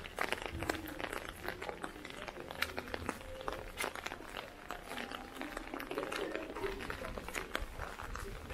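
Raindrops tapping irregularly on an umbrella overhead, with faint voices in the background.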